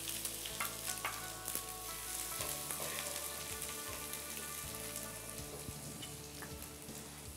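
Chopped onions and seeds sizzling in hot oil in a non-stick frying pan for a tempering, stirred with a wooden spoon that scrapes the pan now and then.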